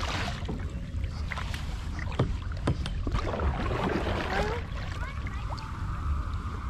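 A kayak being paddled: paddle strokes in the water and a few sharp knocks, over a steady low rumble.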